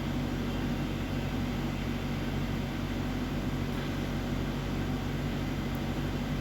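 Steady low background hum made of several steady tones over a constant hiss, without distinct clicks or knocks.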